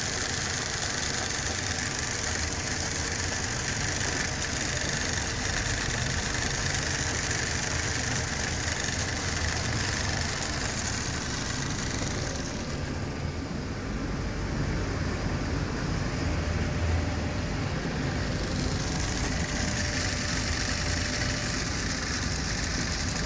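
Zerma PU500 plastics pulverising system running steadily, its mill and blower giving a continuous industrial drone and rushing hiss as it grinds plastic to powder. The hiss falls away for a few seconds in the middle, then returns.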